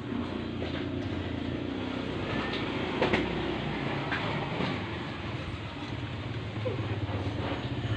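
Engine running steadily with a knock, which the mechanic traces to a wrong camshaft. A sharp click stands out about three seconds in.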